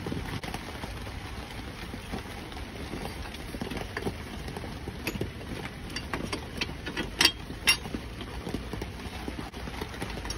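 Scattered metal clicks and clinks as the alternator's mounting bracket is handled and set back in place, with two sharper clicks about seven seconds in, over a low steady rumble.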